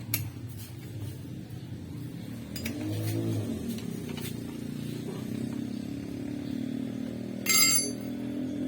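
Small 50cc engine running steadily, briefly revving up and settling back about three seconds in. A short, loud high-pitched sound stands out near the end.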